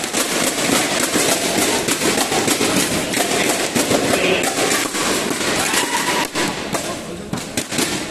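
Audience clapping and cheering, a dense patter of many hands with voices mixed in, easing off near the end.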